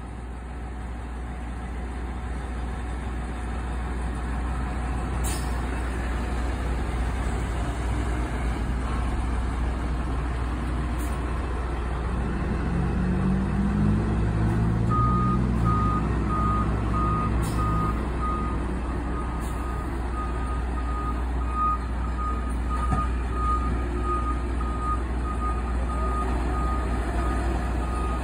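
Fire engine's engine running as the rig manoeuvres, its note swelling about halfway through. Then its reversing alarm starts a steady, repeating beep as it backs into the station.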